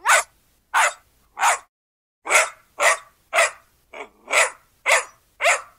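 Puppy barking: a run of about ten short barks, roughly two a second.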